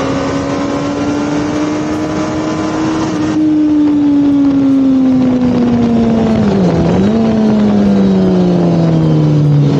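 Suzuki Hayabusa inline-four engine running hard on track, heard from an onboard camera with heavy wind rush. The engine note holds steady for a few seconds, then falls steadily as the bike slows, with a brief dip and recovery about seven seconds in.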